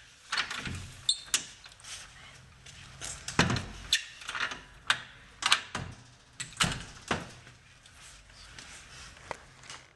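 A key going into a door's lock cylinder and being turned: a string of sharp metallic clicks and rattles, with a few heavier knocks in between.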